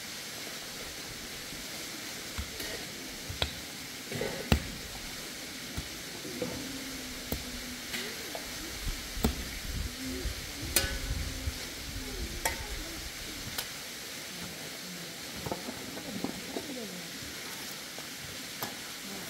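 A pick digging into stony earth: sharp, irregular knocks every second or few as the blade strikes soil and stones, with scraping in between.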